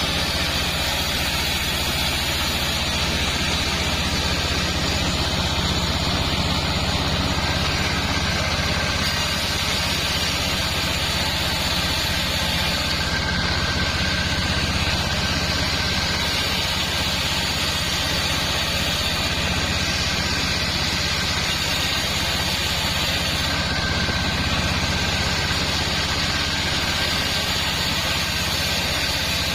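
Sawmill machinery running steadily: the engine driving the saw holds a constant low note, with a faint higher whine that comes and goes.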